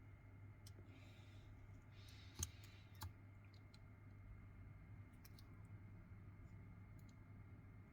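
Faint small clicks and taps of phone parts and tools being handled during reassembly, with two sharper clicks about two and a half and three seconds in, over a low steady hum.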